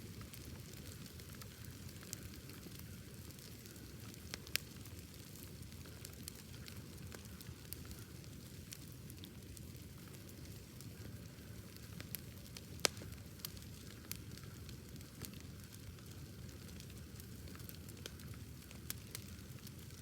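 Wood bonfire burning: a steady low rumble of flames with scattered sharp crackles and pops, two of them louder, about four and a half seconds in and near the middle.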